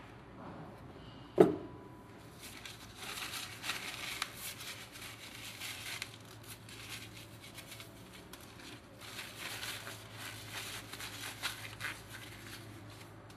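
Workbench handling noise while the sander's gear head is being greased: one sharp knock about a second and a half in, then two stretches of rustling, crackling handling sounds.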